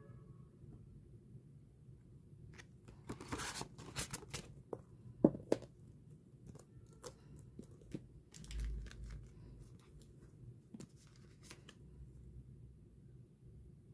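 Hands handling a manga volume and a thin paper card standee: paper rustling and crinkling with scattered light clicks, a sharp tap about five seconds in and a dull low thump a few seconds later.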